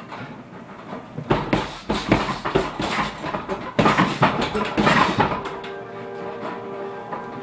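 A rapid flurry of gloved strikes landing on a hanging heavy bag, several hits a second for about four seconds, starting a second or so in. Background music plays underneath.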